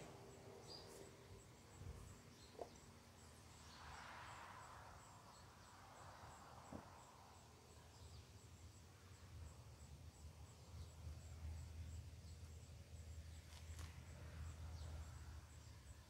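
Near silence: hands rummaging through loose potting soil in a plastic tub, with a soft rustle about four seconds in, over a low hum and a faint high ticking a few times a second.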